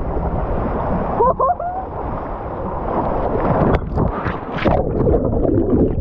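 Water rushing along a water slide's flume with wind on the microphone as a rider slides down, a brief yell about a second in, then a splash-down into the pool about four seconds in followed by churning, sloshing water.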